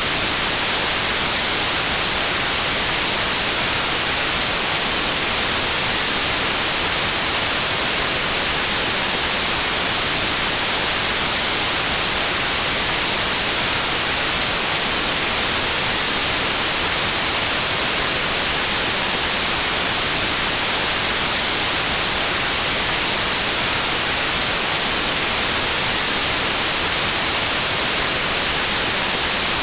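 White noise: a steady, even hiss that never changes, brighter in the treble than in the bass.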